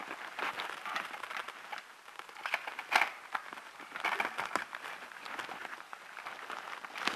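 Footsteps walking over the floor of a disused stone railway tunnel: an uneven string of scuffs and crunches, the loudest about three seconds in.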